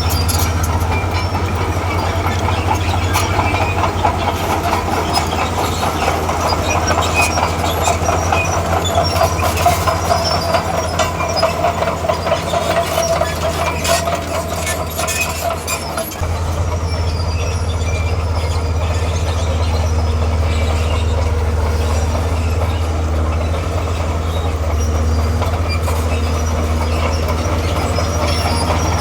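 Heavy diesel earthmoving machinery running under steady load, with a low engine drone and a constant rattle. A high whine rises through the middle and cuts off about sixteen seconds in, where the engine note changes.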